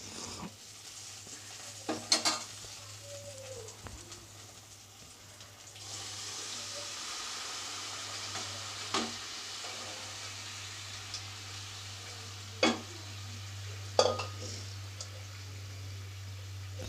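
Boiled kidney beans being added to a pan of fried spice paste and stirred with a spoon: a steady sizzle sets in about six seconds in, and the spoon knocks against the pan a few times.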